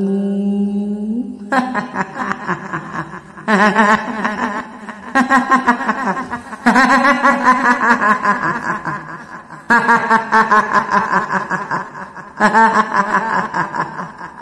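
A woman's voice doing the cackling laugh of a kuntilanak, the Indonesian female ghost, in about six long bouts with short breaks between them, the pitch rising and falling. It comes right after the long, drawn-out end of the spoken line "belakangmu".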